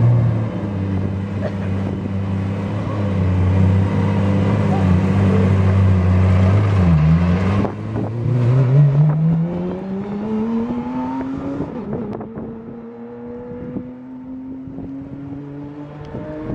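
Porsche 911 GT3 race car's flat-six engine running at low revs, then pulling away with the revs dipping and climbing. It changes up about twelve seconds in and fades as the car drives off.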